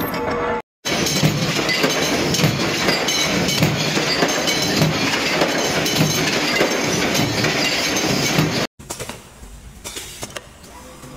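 Loud, continuous metallic clatter and clanking from a large metal-working press as spoked metal parts are fed through it. The clatter cuts off suddenly near the end.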